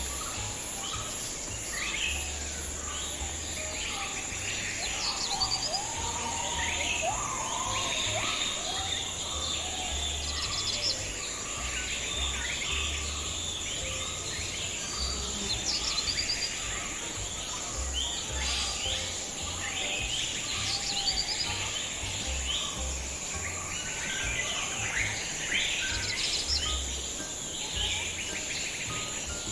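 Nature ambience: many birds chirping and calling over a steady high-pitched insect drone, with an on-and-off low rumble underneath.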